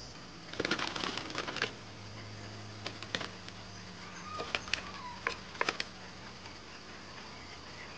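Light clicks and knocks of footsteps on a bamboo floor and ladder, in two clusters. Hens cluck softly among them, and insects buzz in a faint steady drone.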